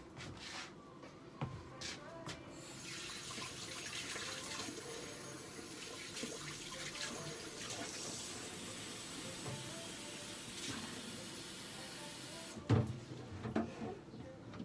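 Water running steadily from a tap for about ten seconds. It starts a couple of seconds in and shuts off abruptly, followed by a loud thump and a few knocks.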